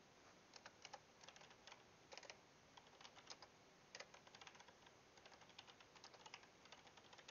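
Faint typing on a computer keyboard: short runs of keystrokes with small pauses between them.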